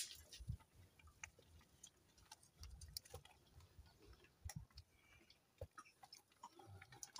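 Faint scattered clicks and soft low knocks of a wooden stick stirring and pressing thick porridge in a metal pot over a wood fire.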